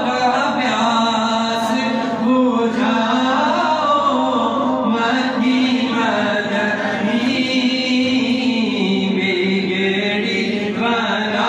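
A man's voice reciting a naat, sung unaccompanied in long, held melodic lines.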